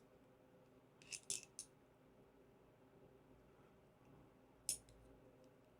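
Near silence broken by light clicks of a small flashlight mount and its clip being handled and turned over: three quick clicks about a second in and a single one near the end.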